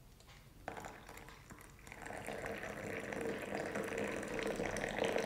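Hot milk poured in a stream from a steel saucepan into a glass cup of coffee, the cup filling. The pour starts about a second in and grows louder as the cup fills.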